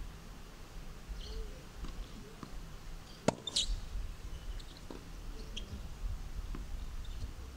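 Quiet outdoor tennis-court ambience with a low wind rumble. About three seconds in there is a single sharp knock of a tennis ball, followed by a brief high squeak.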